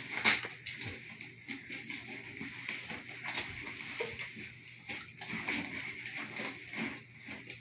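A dog sniffing and nosing about inside a cardboard box and stepping into it, the cardboard rustling and scraping in short irregular crackles, with one louder knock right at the start.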